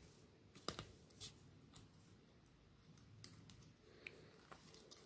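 Faint, scattered clicks and taps of the hard plastic parts of a Transformers Studio Series deluxe Offroad Bumblebee figure as its legs are unfolded and moved into place.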